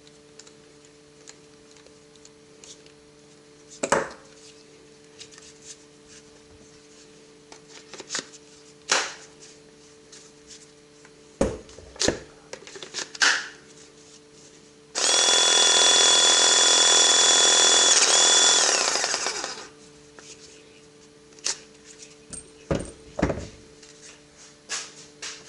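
Scattered clicks and knocks of parts being handled, then a handheld power tool's electric motor runs for about four seconds at a steady pitch, dipping slightly in pitch before it winds down.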